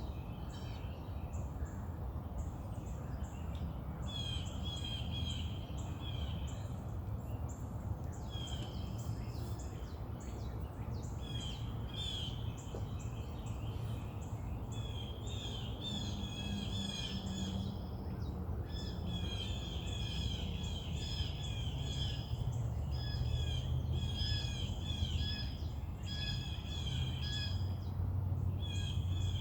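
Songbirds singing and chirping in quick repeated phrases, sparse at first and busier from about halfway through, over a steady low rumble.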